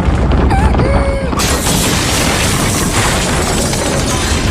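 Dramatised earthquake: a deep, continuous rumble starts, and about a second and a half in it is joined by loud crashing and rattling that keeps on.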